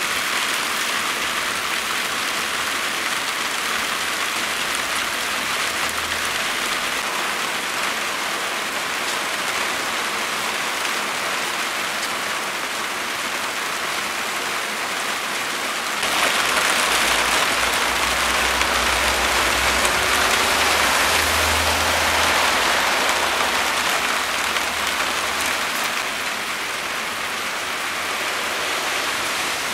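Rain falling steadily as a continuous hiss. It grows louder for about ten seconds midway through, then eases back.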